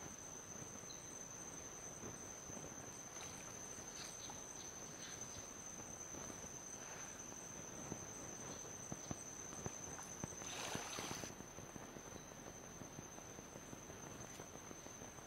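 Crickets trilling in one steady, unbroken high tone. There are scattered faint clicks, and a brief rush of noise lasting about a second, starting about ten seconds in.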